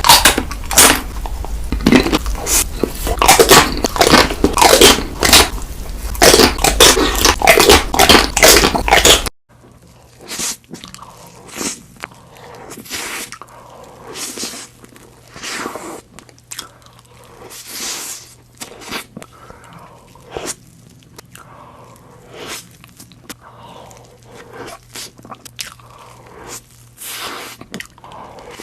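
Close-miked eating sounds of cake being bitten and chewed: loud, dense crunching and chewing for about the first nine seconds. After an abrupt cut it turns to quieter, sparser soft chewing clicks over a faint steady hum.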